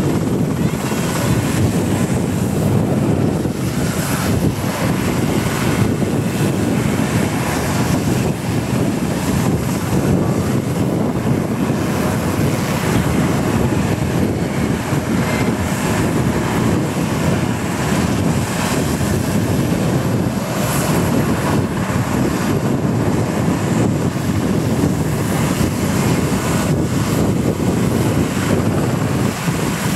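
RAF rescue helicopter running steadily on the ground with its rotor blades turning, shortly before take-off.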